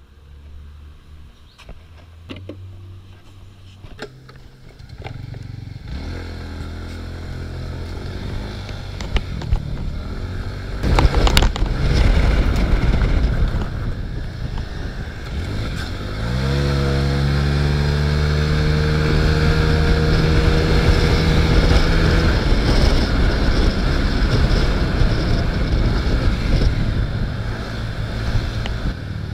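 Honda scooter's single-cylinder engine idling quietly, then pulling away. Its note rises as it accelerates about a quarter of the way in, and again just past halfway, then holds steady at cruising speed, with wind rushing over the microphone.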